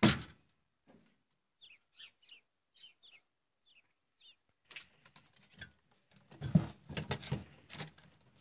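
A sharp knock, then a small bird chirping several times with short falling chirps. From about five seconds in come scuffling and dull thumps on the hutch's wooden floor as the buck rabbit mounts the doe.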